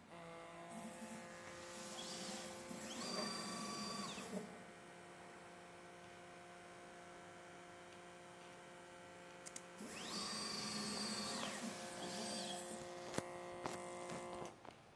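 Stepper motors of a CDPnP desktop pick-and-place machine whining as the gantry head moves. Twice, about three and about ten seconds in, the pitch rises, holds and falls, over a steady electrical hum. A few light clicks come near the end.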